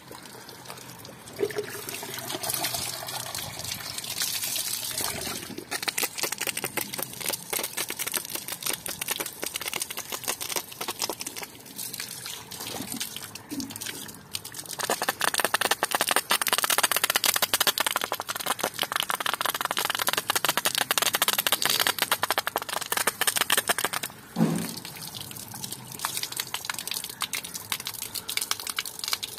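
Water from a 12 V DC water pump's outlet splashing and gushing steadily, louder from about halfway through, with a brief dip near the end.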